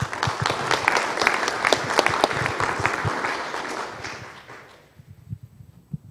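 Audience applauding, the clapping starting at once and dying away about four to five seconds in.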